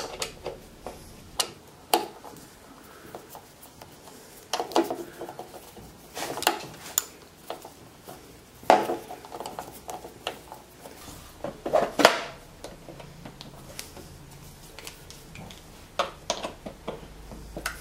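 Irregular metallic clinks and knocks of an Allen key turning a steel support pin into the threaded insert of a plywood jig, with the pin and tools knocking against the wood and metal.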